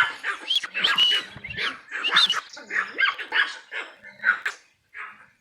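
A dog barking repeatedly in short, high yaps, about two to three a second, thinning out and stopping near the end.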